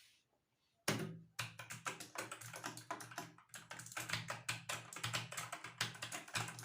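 Keys of a new Redgear mechanical keyboard being typed in a fast, uneven run of clacks, starting about a second in.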